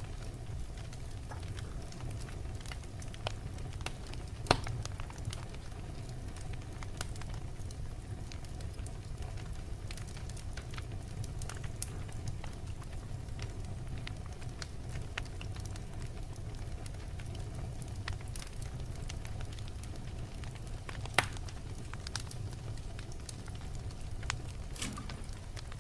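Wood fire burning in a fireplace, crackling with scattered small pops over a steady low rumble; two louder pops stand out, one about four seconds in and one near the end.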